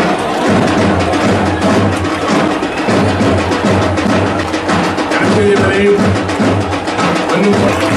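Chanted group singing with a sharp, rhythmic wooden beat: the oarsmen's vanchippattu boat song, keeping the stroke on a Kerala snake boat.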